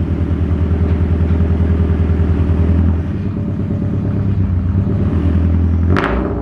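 Scion FR-S's 2.0-litre flat-four boxer engine running at low revs with a steady pulsing exhaust note as the car creeps forward, the note changing about three seconds in. A brief sharp sound breaks in near the end.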